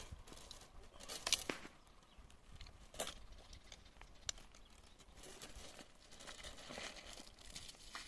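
Faint rustling and scraping with a few sharp knocks as a bucket is hauled up out of a deep village well by hand.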